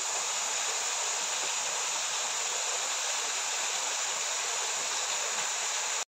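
Small waterfall pouring steadily into a rock pool: an even, unbroken rush of falling and splashing water.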